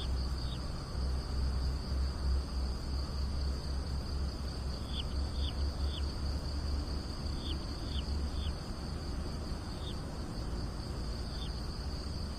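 Outdoor insect chorus: a steady, continuous high trill, with short falling chirps in little groups of two or three every couple of seconds, over a low rumble.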